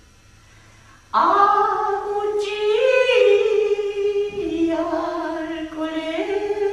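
A single voice singing unaccompanied. It slides up into its first note about a second in, then holds long notes that step slowly up and down.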